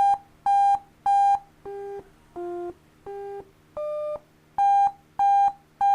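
Short electronic beep tones from a C++ program using the Windows Beep function: about two beeps a second at one pitch, then four quieter, lower beeps that step in pitch in the middle, then the higher beeps again.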